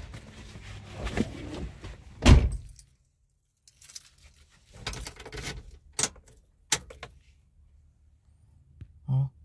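Toyota Kijang's driver's door thumping shut about two seconds in, then keys jangling and a couple of sharp clicks as the ignition key is turned on, with a brief low buzz near the end.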